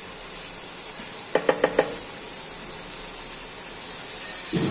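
Chicken frying with spices in a kadhai, sizzling steadily. About a second and a half in come four quick ringing knocks, and a low knock near the end.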